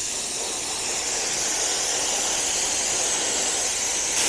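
Handheld, hose-fed localized cryotherapy gun blowing a continuous jet of cold gas, a steady high hiss that grows slightly louder, as it chills the skin toward its target temperature.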